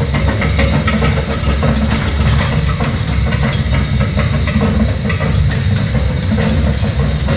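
Small tourist train running: a steady low engine rumble with irregular rattling and clicking from the cars.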